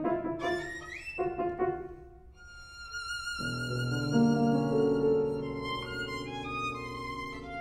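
A violin and a piano play a classical duo. The violin plays quick short notes with an upward slide about a second in, then holds a long high note with vibrato, while the piano enters with low sustained chords a few seconds in.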